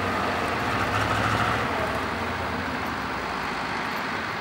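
Off-road trial truck's diesel engine running under load as the truck crawls slowly over rocks, easing off a little.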